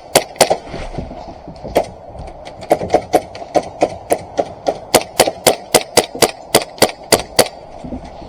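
Airsoft pistols firing in quick succession, sharp cracks about three a second, with a short pause early on before a longer steady string of shots.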